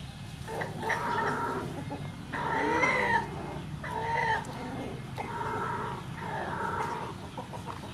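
A run of about five drawn-out animal calls, each under a second long with a bending, arching pitch, over a steady low hum.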